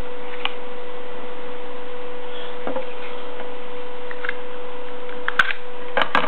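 Fixed-blade knife drawn from its Kydex sheath: faint handling clicks, then a sharp click about five seconds in and a couple more just before the end as the blade comes free. A steady electrical hum and hiss run underneath.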